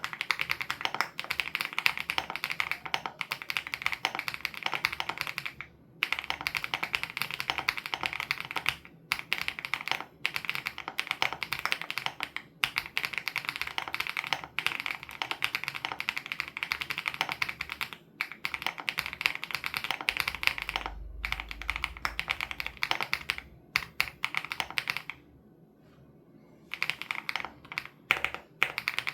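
Fast, continuous typing on a WOB Crush 80 Reboot custom mechanical keyboard with Hyacinth switches, broken by a few short pauses and a longer pause near the end.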